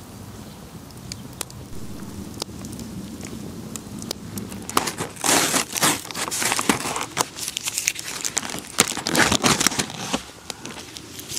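Wood campfire crackling with sparse pops. From about five seconds in, a plastic food tray crinkles loudly as its film lid is peeled back, dying down near the end.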